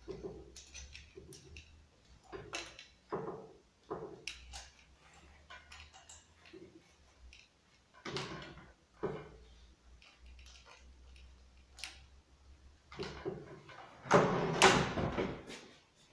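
A chainsaw, not running, being handled on a wooden workbench: scattered knocks and clicks, then a louder clatter about two seconds before the end as the saw is laid over on its side.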